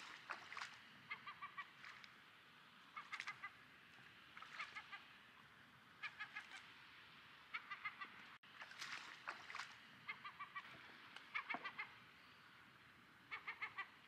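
Repeated animal calls, each a quick run of four to six short notes, coming every second or two.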